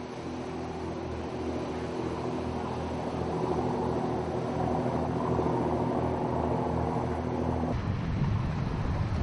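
An engine running steadily with a low pulsing hum. About three quarters of the way through it gives way to wind buffeting the microphone over rushing water, as aboard a yacht under sail.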